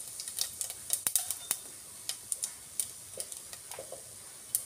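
Cumin seeds crackling in hot oil (a tadka) over a faint sizzle: quick, irregular sharp pops that thin out after about two seconds, with one louder pop near the end.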